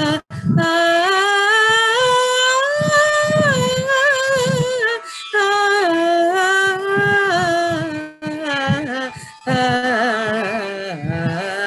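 A woman singing a wordless Carnatic-style alapana over a video call: long held notes on a vowel that slide and waver between pitches, in several phrases broken by short breaths.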